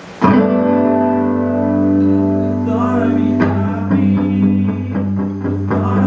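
Rock band starting a song: a guitar and bass chord rings on, with a single sharp drum hit about three and a half seconds in. Drum strokes start up near the end.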